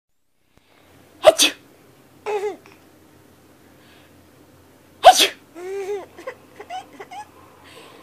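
A person off camera gives two loud sneezes, about a second in and about five seconds in. A baby answers each with high vocal sounds: a short squeal after the first, and a run of giggling after the second.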